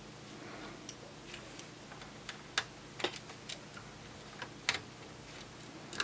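Irregular small metallic clicks and taps from a screwdriver and metal parts inside an electronics chassis, as a screw is undone and a hard-drive caddy is worked loose.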